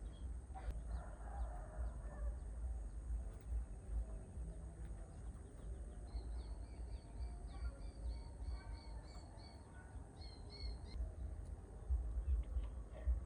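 Birds calling: a rough call about a second in, then a rapid series of short repeated high notes for several seconds midway, over a low steady rumble.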